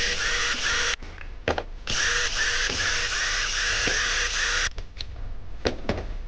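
Handheld electric power tool motor running in two spells, about a second and then nearly three seconds, with a faint pulsing in its sound, then a few sharp clicks. The tool is being test-run during repair; the repairer thinks its fault lies in the switch.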